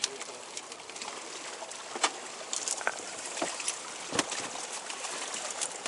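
Scattered knocks and clicks of hard plastic on a jet ski as its storage compartment is searched, with one sharper knock about four seconds in, over a steady hiss.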